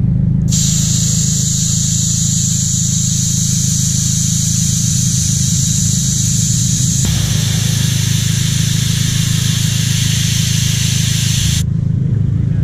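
Air hissing out of a car tyre through the valve stem as the valve core is held down, letting the pressure out. The hiss starts about half a second in, changes tone about seven seconds in and stops about a second before the end, over a steady low rumble.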